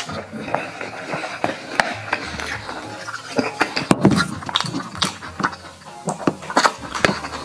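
Close-miked eating: wooden chopsticks clicking and scraping against a stainless-steel bowl, and chewing and smacking on mouthfuls of braised pork belly.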